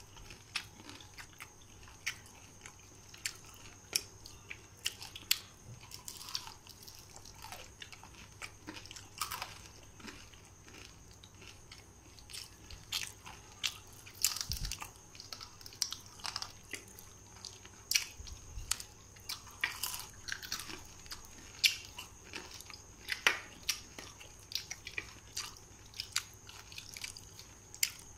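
Close-up chewing and biting of battered, deep-fried chicken pakora, with irregular crunches and mouth clicks.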